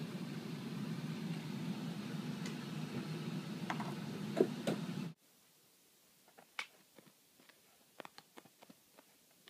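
A steady low hum with a few knocks near the middle cuts off abruptly about five seconds in. After that, faint scattered ticks and taps are heard as a kitten's paw bats at a plastic drinking straw on carpet from under a plastic laundry basket.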